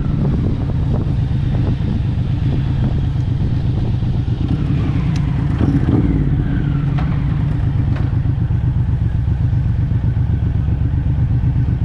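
Suzuki Boulevard motorcycle engine running steadily at low revs, heard from a mount on the bike, with faint pitch glides around the middle.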